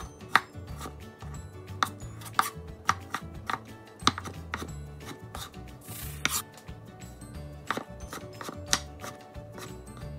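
Chef's knife chopping tomatoes on a wooden cutting board: irregular sharp knocks of the blade meeting the board, roughly two a second, with a short pause about halfway through.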